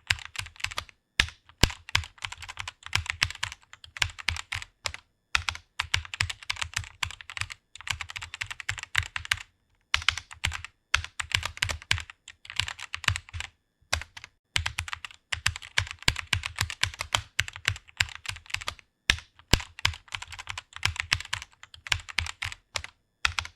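Computer keyboard typing in quick runs of key clicks, broken by short pauses of about half a second.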